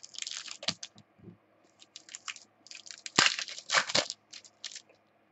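Baseball cards and their pack wrappers being handled: a run of short rustling, crinkling and sliding noises, loudest about three to four seconds in.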